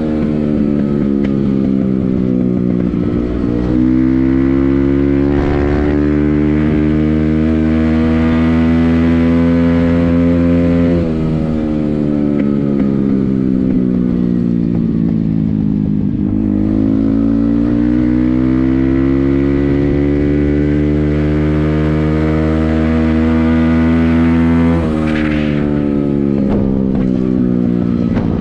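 Motorcycle engine under way, its pitch climbing slowly as it pulls. It drops sharply when the throttle is closed about a third of the way in, sinks while the bike slows, then climbs again and drops once more near the end.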